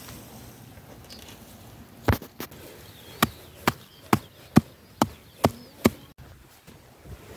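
A hand tool striking the loose shale ground, about nine sharp knocks at a steady pace of roughly two a second, starting about two seconds in.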